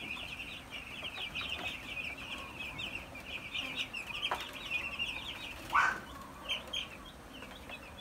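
A flock of young broiler chicks peeping continuously, a dense chatter of short high peeps, with one brief louder sound about six seconds in.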